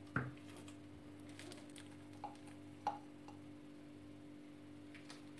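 Whipped cream being squeezed from a piping bag into wine glasses: a few short, soft squishes and taps, the loudest at the very start and two more about halfway through, over a steady faint hum.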